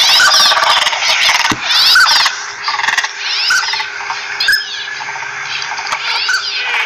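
Northern pintails calling: short whistled notes, about one a second, over a dense chorus of rapid, higher-pitched chirping calls.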